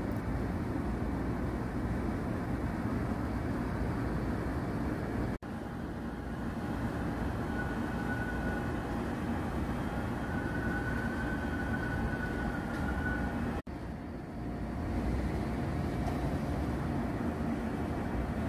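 Steady low rumble of city traffic, cut off abruptly twice for an instant, about five seconds in and again near fourteen seconds, where one clip gives way to the next. A faint thin whine sits over it in the middle.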